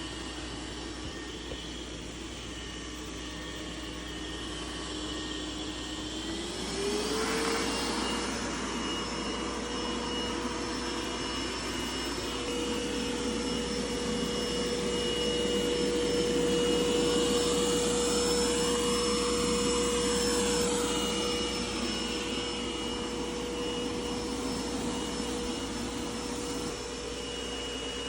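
Robot vacuum cleaner running steadily. Its motor hum rises in pitch about six seconds in and then holds with a high whine, growing louder in the middle before easing off.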